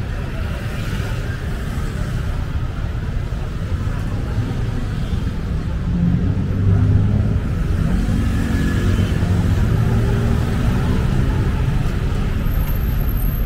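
City street traffic: a steady low rumble of motor vehicles, with a vehicle's engine running close by and growing louder about six seconds in as it passes.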